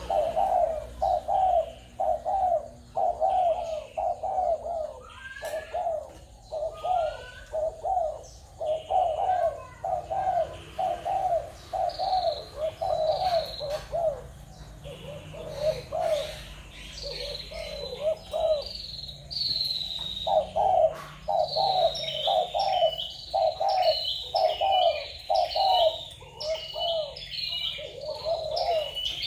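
Spotted doves cooing: short low coos repeated about twice a second, thinning out for a few seconds near the middle. After that, a small bird's high, falling chirps join in alongside the coos.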